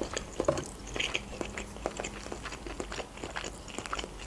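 A person chewing a mouthful of creamy fusilli pasta: wet mouth clicks and smacks, irregular and several a second.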